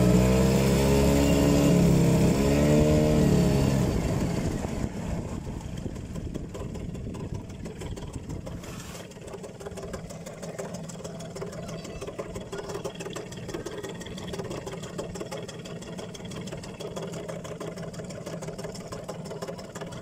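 An engine running loudly for about four seconds with a wavering, rising-and-falling pitch, then dropping away to a quiet steady background hum.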